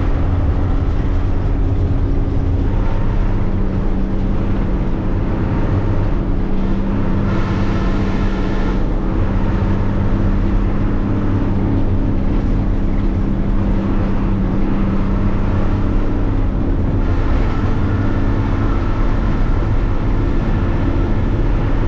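Non-AC intercity bus under way on the road: a steady engine drone with constant road and wind noise.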